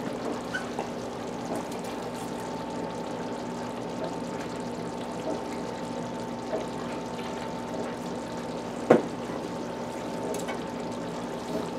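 Hamburger patties simmering in barbecue and steak sauce in a stainless steel skillet, a steady wet bubbling sizzle. One sharp knock about nine seconds in.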